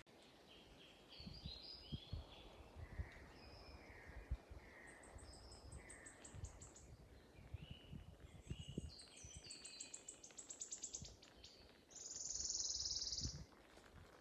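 Woodland songbirds singing: many short whistled notes and a quick run of rapid notes in the middle, then a harsh buzzing burst of about a second and a half near the end. Soft low thuds sound here and there underneath.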